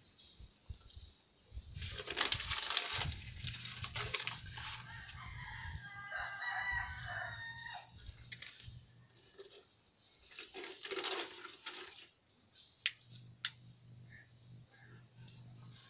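A rooster crows once, a long call about six seconds in. Around it come short bursts of rushing noise and two sharp clicks near the end.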